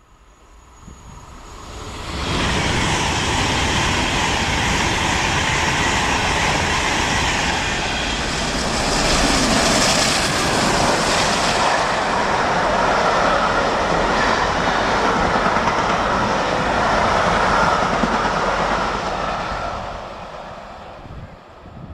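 LNER Peppercorn A1 Pacific steam locomotive 60163 Tornado and its train passing through a station, its three-cylinder engine working. The sound builds over about two seconds, stays loud, then fades near the end as the train goes by.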